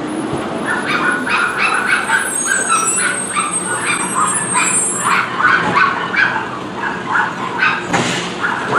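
A dog barking rapidly and steadily, about three high barks a second, over the low running of a garbage truck engine. Just before the end a sharp clatter sounds as the truck's automated arm tips a cart and the garbage falls into the hopper.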